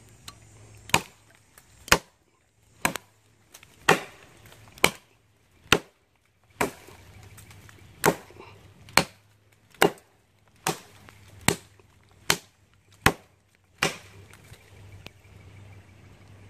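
A Bark River Bravo III knife, a thick convex-ground 3V steel blade, chopping into a fallen tree branch: about fifteen sharp strikes, roughly one a second, with a brief pause a little before halfway.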